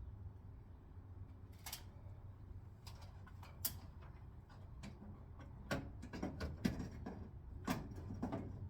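Irregular light clicks and taps of hand work on a car tail-light assembly and its parts, few at first and coming more often near the end, over a low steady hum.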